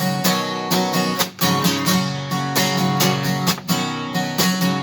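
Country music instrumental break: acoustic guitar strummed in a steady rhythm between sung lines.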